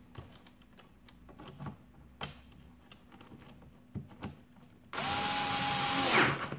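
Cordless electric screwdriver running on a screw in a sheet-metal mounting plate, for about a second near the end, its pitch falling as it stops. Before it, a few light clicks and knocks from handling the tool and parts.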